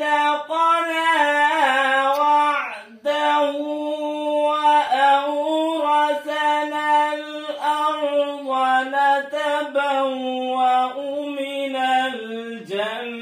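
A young man's voice singing unaccompanied in a slow devotional chanting style, holding long wavering notes, with a short break for breath about three seconds in.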